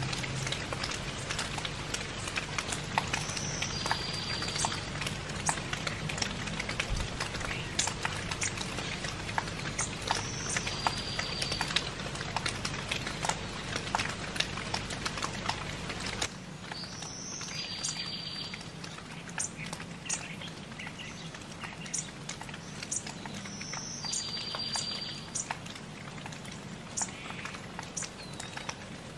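Steady light rain with scattered drops ticking sharply close by. A songbird repeats a short phrase, a high note followed by a buzzy trill, about every seven seconds.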